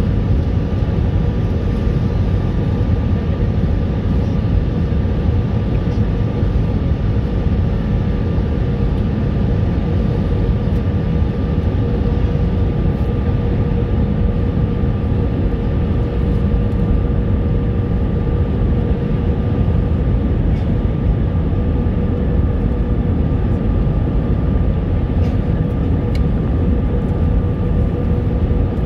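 Steady cabin noise inside an Airbus A320-200 on approach, heard at a window seat over the wing: an even low rumble of engines and airflow with two faint steady hums running through it.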